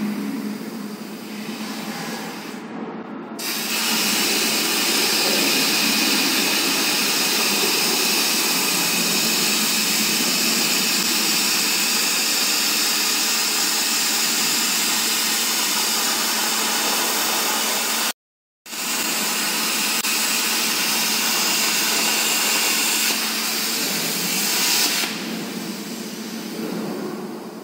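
Plasma cutting torch of a CNC H-beam cutting robot cutting steel. After a few seconds of machine hum, the arc strikes with a loud, steady hiss, broken by a brief dropout past the middle, and fades near the end.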